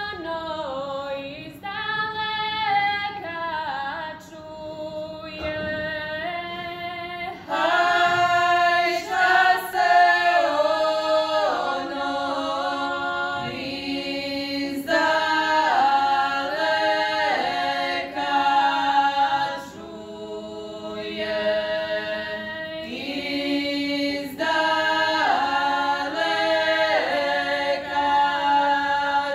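Five women singing a traditional Croatian wedding song (svatovska pjesma) unaccompanied, several voices sounding together in long held phrases with short breaks between them.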